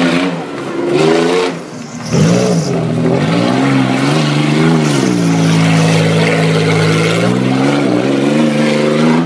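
Modified pickup truck's engine revving hard on a dirt obstacle course, its pitch rising and falling with the throttle. It eases off about two seconds in, surges back, then holds high revs for a couple of seconds before dropping briefly near the end.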